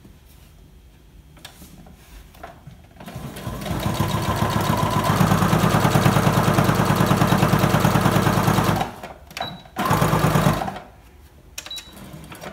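Electric sewing machine stitching across the top edge of a fabric mask piece: it speeds up about three seconds in, runs with a fast, even needle rhythm for about five seconds, stops, then stitches a second short run. Light clicks of fabric handling come before and after.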